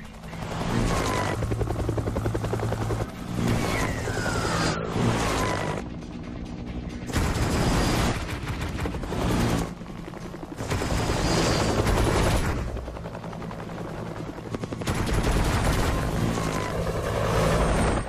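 Helicopter rotor chop mixed with music. The sound changes abruptly every few seconds as sections are cut together.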